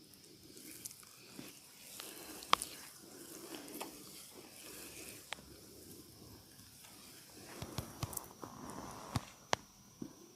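Hands rubbing and kneading oiled skin, a soft, wet squishing, broken by a few sharp clicks, the loudest about two and a half seconds in and several more near the end.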